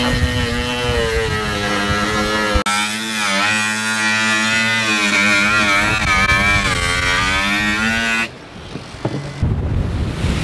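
Cordless power drill running steadily, its motor pitch sagging and recovering under load as it bores holes into the carbon-sandwich laminate for a delamination repair. It cuts off abruptly about eight seconds in, leaving wind and waves.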